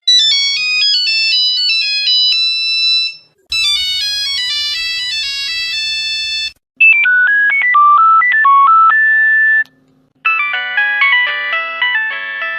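Phone ringtones: four short electronic ringtone melodies, each about three seconds long, played one after another with brief pauses between them.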